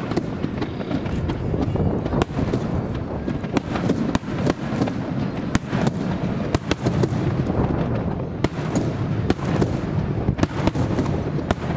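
Aerial fireworks going off: many sharp bangs and crackles in quick succession over a continuous low rumble, with strong wind buffeting the microphone.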